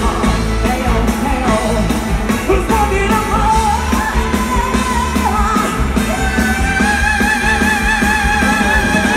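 Live pop band with keyboard and a steady drum beat, backing a male singer on a handheld microphone. From about six seconds in, a long note is held with vibrato.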